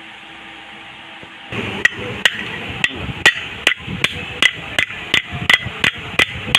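Hammer striking metal fan parts during a bearing replacement, in steady repeated blows about two to three a second, starting about a second and a half in.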